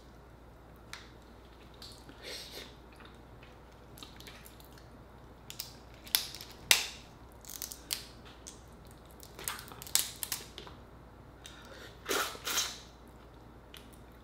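Cooked Dungeness crab shell cracking and snapping as it is pulled apart by hand, in irregular sharp clicks and short crackles, with a few busier clusters about halfway through and near the end.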